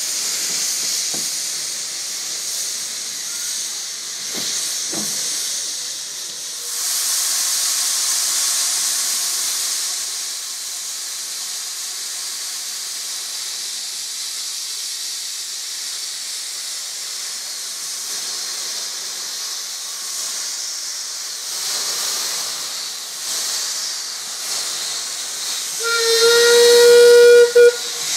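Andrew Barclay 0-4-0 saddle tank steam locomotive hissing steadily as steam blows from its open cylinder drain cocks, with a louder gust of hiss about seven seconds in. Near the end comes a short, loud blast on its steam whistle, one steady note lasting about a second and a half.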